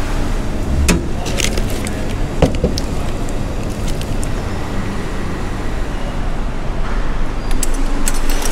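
Steady low background rumble, with scattered clicks and rustles as a vending-machine packet of cat food in a plastic bag is taken out and handled, and a quick run of small sharp clicks near the end.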